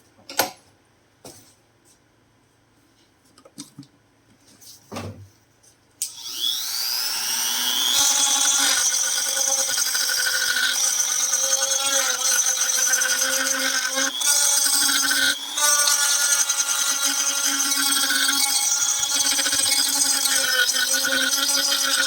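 A few light clicks and knocks, then about six seconds in a small high-speed rotary tool whines up to speed and runs steadily, grinding down the back of a plastic airsoft pistol grip in rough shaping.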